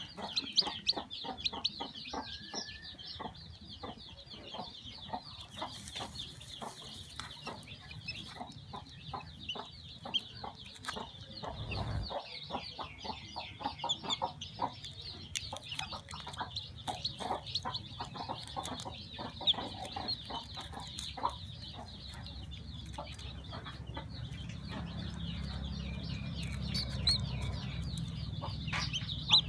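A hatching chick cheeping continuously: rapid, high-pitched peeps, with scattered small clicks.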